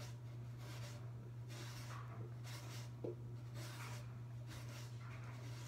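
Wooden popsicle stick spreading polishing compound over the blue buffing pad of a disc repair machine: soft, repeated scraping strokes about once a second, with a small click about three seconds in.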